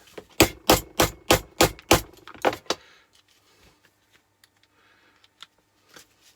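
Hammer blows on scrap metal: about eight quick, evenly paced strikes over two and a half seconds, then only a few faint clicks.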